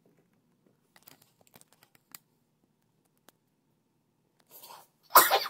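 Hands handling a small metal model milling machine: a few faint clicks and ticks of its parts, then near the end a brief, much louder rustling scrape.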